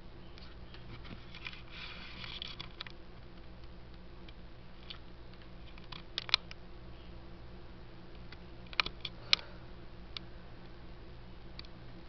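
Quiet room tone with a steady low hum, a brief rustle about two seconds in, and a few sharp clicks: a pair about six seconds in and three more near nine seconds in.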